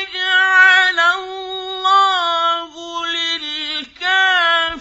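A man reciting the Quran in the slow, melodic mujawwad style, drawing out long high notes with ornamented turns of pitch. There are two brief pauses for breath near the end.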